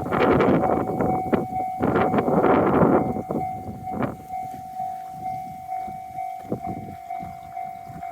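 A train passing over a Japanese level crossing: its wheels clatter loudly over the rail joints for the first three seconds or so, then the rumble fades with regular clacks. The crossing's warning bell keeps ringing in a steady, evenly repeating tone.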